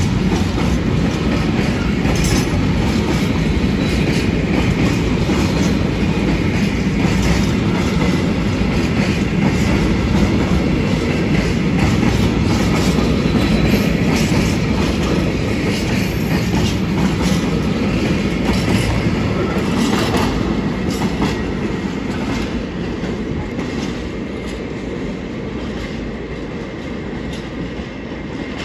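A freight train of china clay bogie hopper wagons rolling past close by, its wheels clacking steadily over the rail joints. The sound fades away over the last several seconds as the end of the train goes by.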